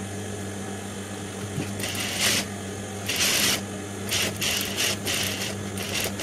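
Industrial lockstitch sewing machine stitching gold piping onto a blouse lining piece in several short runs, starting about two seconds in, with a steady hum underneath.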